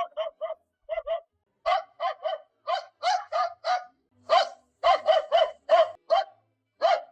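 Cartoon dog Lady's bark sound effect: about twenty short, sharp barks in quick runs of two to four, with brief pauses between the runs. Each bark rises and falls in pitch.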